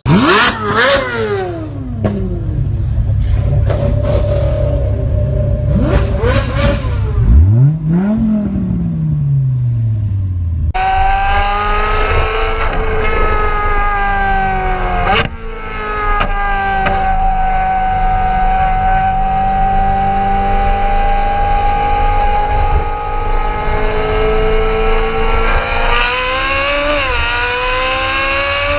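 Ferrari 458's V8, fitted with iPE (Innotech Performance Exhaust) headers and exhaust, revving with its note swooping up and down. After a cut it holds a long, steady high-revving note that climbs again near the end.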